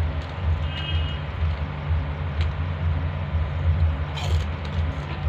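Steady low machine hum with a few evenly spaced pitches, and a brief crisp crunch of chips being chewed about four seconds in.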